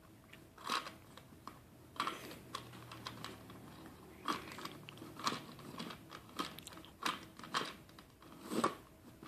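Tiny toy gumball machine's turning knob being twisted over and over, giving irregular plastic clicks and rattles, about one or two a second. No gumball drops out because one is jammed inside.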